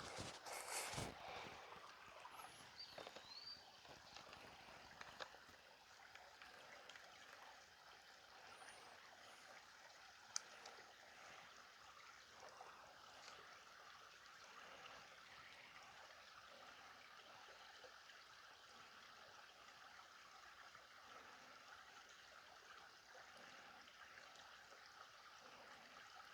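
Faint, steady trickle of a small stream running down shallow waterfall steps. There is a short rustling knock about a second in and a single sharp click about ten seconds in.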